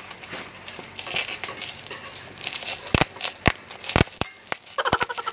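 Plastic bubble wrap being crinkled and squeezed between the fingers. Crackling at first, then sharp pops as single bubbles burst, three spaced about half a second apart and a quick cluster near the end.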